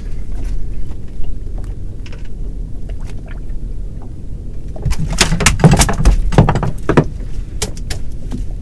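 Metal fishing tackle clinking and rattling, with knocks in the hull of a small boat as the rig is handled. The knocks come thickest and loudest in a flurry about two-thirds of the way through, over a steady low rumble.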